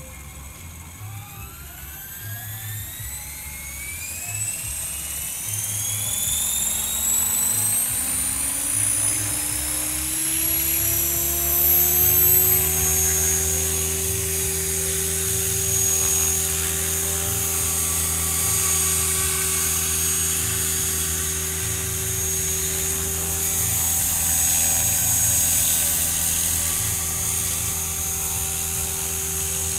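Electric T-Rex 500 RC helicopter spooling up. The motor and rotor whine rises steadily in pitch and loudness over about twelve seconds, then holds at a steady pitch once the rotor reaches flying speed.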